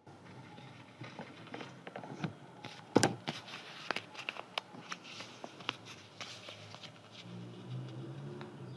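Scissors snipping paper, with the paper rustling: a run of irregular sharp clicks, the loudest about three seconds in. A low hum comes in near the end.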